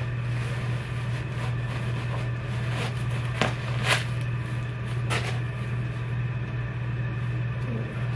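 A few short crinkles of stuffing paper being pulled from new sneakers, the loudest about four seconds in, over a steady low hum.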